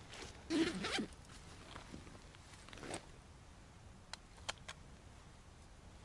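Camera gear being handled: a short rasping, zipper-like scrape about half a second in, then three small sharp clicks between four and five seconds in.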